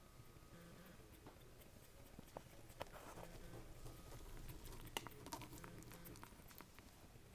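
Faint snuffling, suckling and shuffling of 18-day-old Havanese puppies nursing against their mother, with scattered soft clicks, busiest in the middle.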